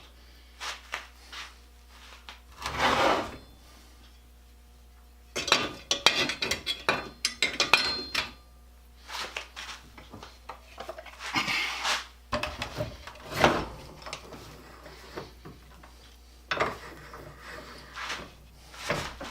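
Metal parts and hand tools being handled at the bench, with irregular clinks, scrapes and rubbing, as a rivet is set in the treadle pieces.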